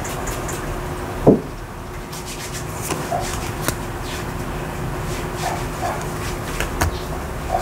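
Tarot cards being handled in a flip-through: soft rubbing of card stock with light clicks and taps. About a second in there is one short, louder sound whose pitch drops sharply, over a faint steady hum.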